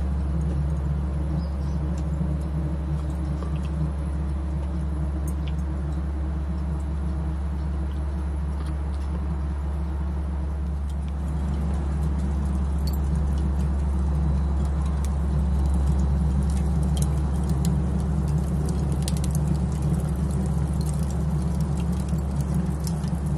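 A steady low mechanical hum throughout, a little louder in the second half. Over it, faint scattered crackles from lump charcoal catching alight in a kamado grill's firebox.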